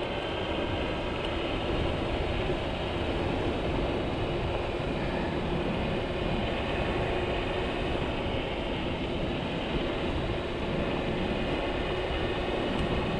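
Dualtron Spider electric scooter riding at about 45 km/h: a steady rush of wind and tyre-on-pavement noise, with a faint steady tone running through it.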